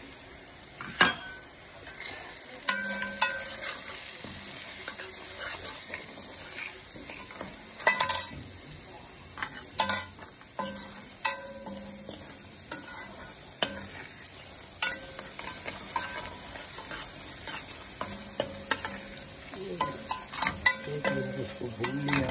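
Ground spices and fried onions sizzling in hot oil in a stainless steel pan, while a metal slotted spoon stirs and scrapes them, clicking sharply against the pan many times.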